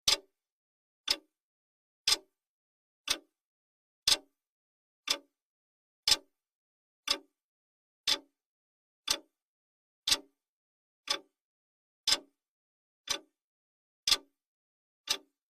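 Clock ticking, one sharp tick each second, with every other tick slightly louder in a tick-tock pattern.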